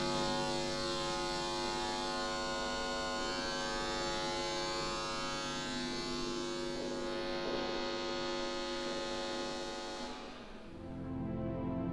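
Electrical hum and buzz from current running through wired lamps and household objects, a dense steady drone with a high buzzing edge. About ten seconds in, as the lights dim, the high buzz fades away and a lower hum takes over.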